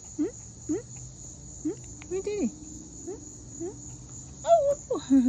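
Steady high insect drone throughout, over a run of short rising whines or squeaks, about two a second at first, then a few longer, wavering whines in the second half.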